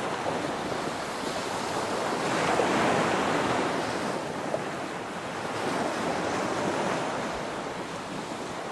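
Rushing surf of ocean waves, a steady wash of noise that swells and ebbs every few seconds.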